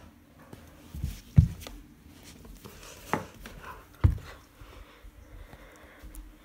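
Four knocks, the loudest about a second and a half in and again about four seconds in.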